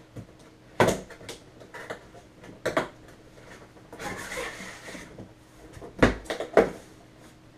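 Cardboard box being handled and opened: a few sharp knocks and thumps of the lid and box, with a rustle of packing about four seconds in.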